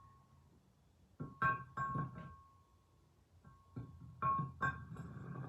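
Metal vise parts knocking together as the sliding jaw is lined up with the housing, several light irregular clinks that each ring with a clear bell-like tone, with a pause of about a second early on.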